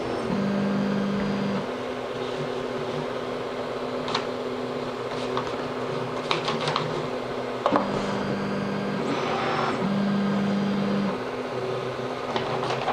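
Small desktop 3D printer humming steadily, with a low motor tone starting and stopping three times in spells of about a second as the print head moves between bed-levelling points, and a few light clicks.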